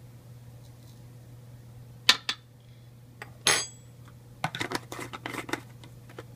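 Kitchen utensils and spice containers clinking and knocking: two sharp clicks, a louder clink with a short metallic ring, then a quick run of small rattling clicks.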